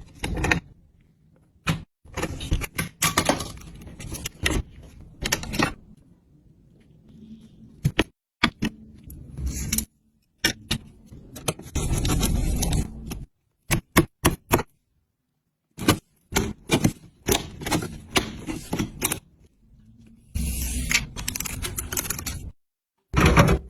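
Hands handling and fitting computer parts: clicks, knocks, scraping and light metallic rattles in short bursts, cut off suddenly by several silent gaps between edited clips.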